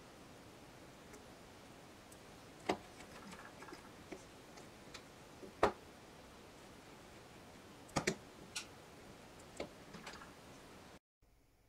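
A handful of separate sharp clicks and taps as a metal watch case is handled and clamped into a watch case holder, the case knocking against the holder's metal pins and jaws, with a quick double click about eight seconds in.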